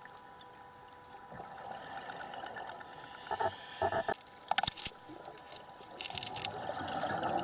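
Scuba diver breathing through a regulator underwater: short hissing inhalations and rushes of exhaled bubbles. Two sharp hisses come a little past the middle, and a longer bubbling rush builds near the end.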